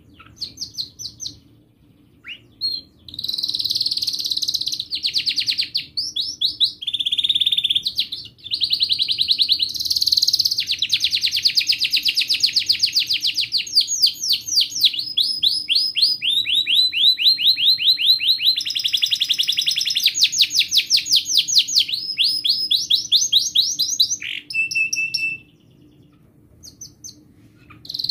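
Domestic canary singing a long song: fast trills of repeated sweeping notes, one phrase running into the next with hardly a break. The song starts about three seconds in and gives way to a few short single notes a few seconds before the end.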